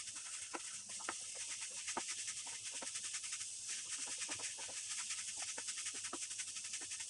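Chicken, onion and capsicum sizzling in oil in a nonstick frying pan on a high flame, with a steady hiss. A wooden spatula scrapes and knocks against the pan a few times a second as the stir-fry is tossed.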